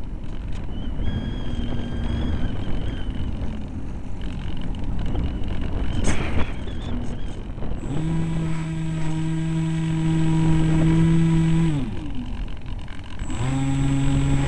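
EasyStar RC plane's brushless electric motor and propeller, heard from the onboard camera. It gives a steady whine at high throttle from about eight seconds in, cuts out after about four seconds, then comes back on near the end. Between the bursts there is wind noise with a softer, changing motor tone.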